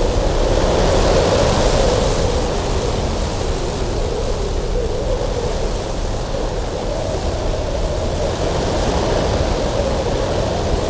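Strong cold wind blowing steadily, with a low moaning howl that wavers in pitch over a deep rumble and swells a little about a second or two in.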